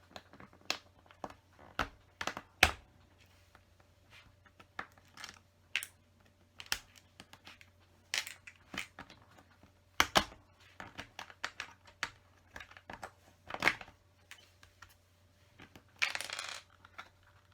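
Plastic LEGO bricks clicking and clattering as a misplaced piece is worked at to get it out: a scattered run of sharp clicks, with a short rustle near the end.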